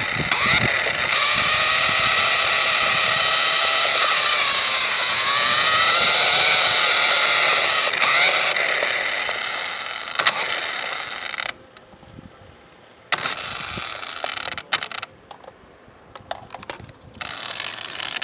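Small electric motor and gears whining at speed, the pitch dipping and rising again. About eleven seconds in the whine breaks off into short throttle bursts with pauses between them.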